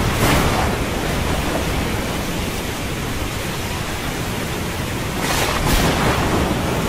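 Storm wind and rushing seawater: a loud, steady hiss of wind and surf that swells briefly at the start and again, more strongly, about five seconds in.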